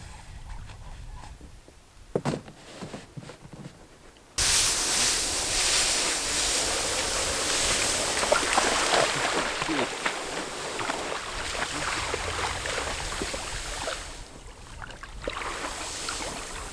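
Rushing, splashing water, loud and even, starting abruptly a little over four seconds in after a quieter stretch with a single knock, and easing off near the end.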